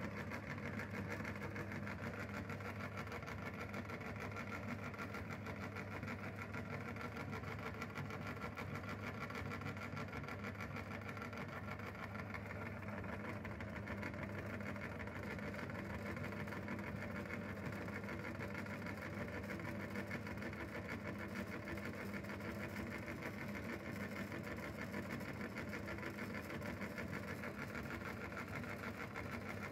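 Motor-driven meat grinder running steadily with a constant hum while it pushes soft, melted ice cream through its cutting plate.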